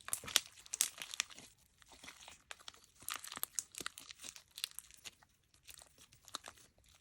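Clear slime being kneaded and squeezed by hand, giving an irregular run of sharp sticky clicks and crackles.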